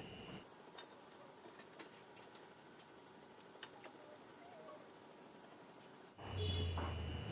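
Insects, likely crickets, chirping in a steady, evenly pulsed high trill. About half a second in, a lower trill gives way abruptly to a higher-pitched one, and the lower trill returns near the end.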